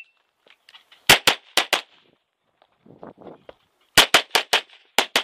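Rapid pistol fire from a Tanfoglio Limited Custom Extreme in .40 S&W: a quick string of about five shots about a second in, a gap of about two seconds, then a second fast string of about six shots near the end.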